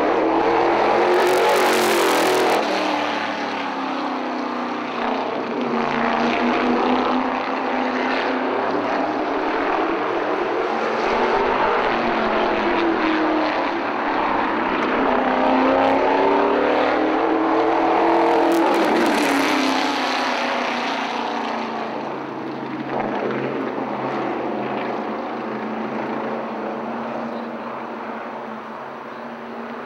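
Stock car engine running hard as the car laps the oval, its pitch rising and falling over and over as it revs and lifts. It is loudest in two rushing pass-bys, about two seconds in and again past the middle, and fades toward the end.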